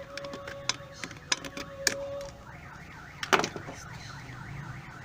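Hand tools clicking and tapping on metal while a seal is worked out of a washing machine transmission, with one sharp knock a little past halfway. From about halfway, a warbling siren-like wail rises and falls several times a second in the background.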